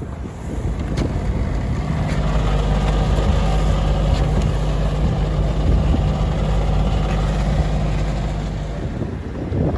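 A boat's engine running with a steady low hum, building about a second in and fading near the end.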